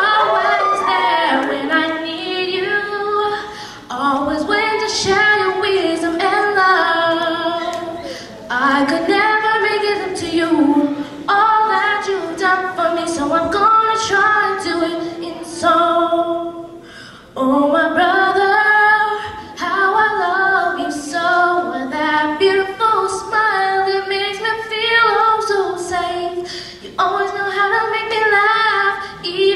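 A young girl singing solo and unaccompanied into a microphone, in sung phrases with short pauses between lines.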